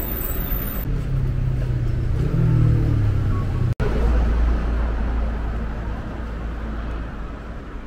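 Road traffic: a motor vehicle's engine running on the street, its pitch rising a little about two seconds in. After a brief cut-out, a deeper rumble of passing traffic slowly fades.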